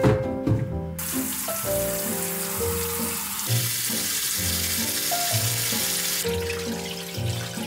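Tap water running into a stainless-steel sink basin onto slabs of beef short ribs, filling it to soak the blood out of the meat. The rush of water starts about a second in and eases about six seconds in.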